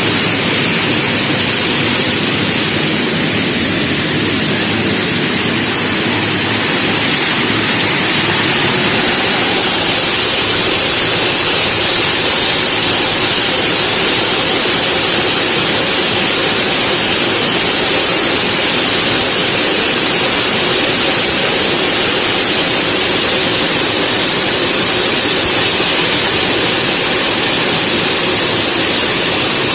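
Pine nut shelling machine running, a loud steady rushing noise as the nuts are cracked and pass through it.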